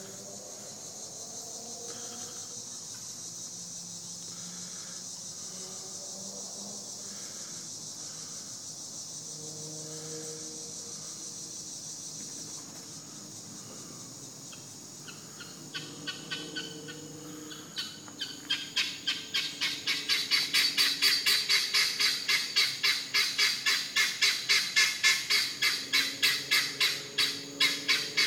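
Steady insect drone through the first half. Then a guinea fowl starts calling, first in scattered notes and, from a little past halfway, in a fast, even string of loud calls, about three a second.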